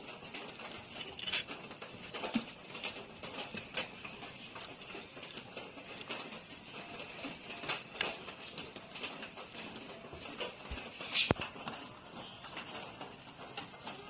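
Light, irregular clicks and taps of small parts and wires being handled during electrical assembly, with one sharper knock late on.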